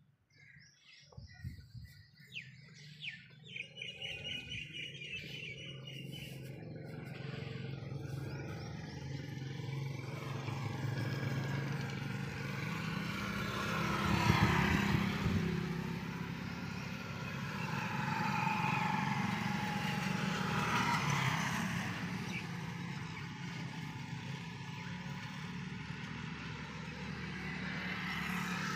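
Motor vehicle engines on a road: a steady engine hum with vehicles passing, the loudest about halfway through and another a few seconds later. Small birds chirp in the first few seconds.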